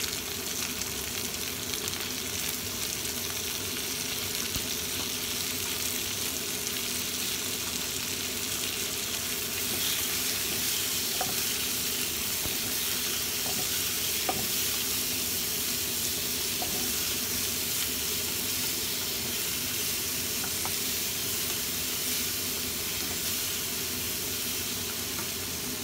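Fresh squid rings sizzling steadily in hot oil with sliced shallots and garlic in a nonstick wok, stirred now and then with a spatula; the sizzle grows a little louder partway through.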